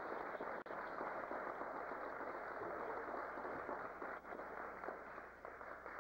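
Audience applause: a dense, even crackle of many hands clapping, starting as the music stops.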